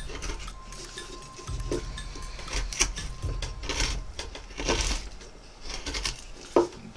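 Small carving chisel slicing into a wooden spoon blank: a series of short cutting strokes, about one a second, with a sharp knock near the end.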